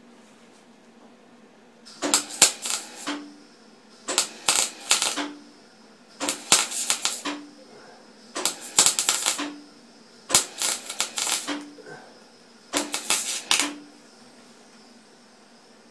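MIG welder laying six short stitch welds, each a second or so of crackling, spattering arc, about two seconds apart, with a brief low hum after each. At setting B4 the arc runs hot enough to blow through the thin metal in places.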